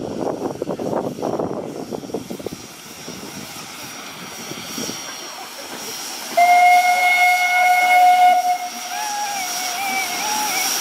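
Narrow-gauge steam locomotive blowing its steam whistle: a loud steady note held for about two seconds, starting some six seconds in. Before it there is a rough noisy hiss of steam in the first couple of seconds, and after it a fainter wavering whistling tone.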